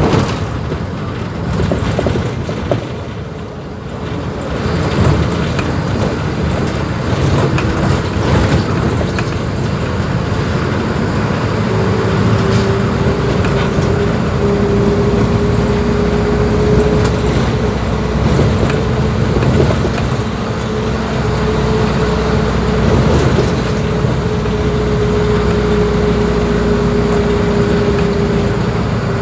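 Mercedes-Benz OF-1721 BlueTec 5 bus's four-cylinder diesel engine running. A steady whine climbs a little in pitch after several seconds, then holds level.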